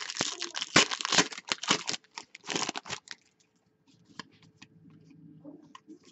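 A hockey card pack's wrapper being torn open and crinkled: a dense run of crackling rustles in the first three seconds. Then come softer, scattered flicks as the cards are sorted by hand.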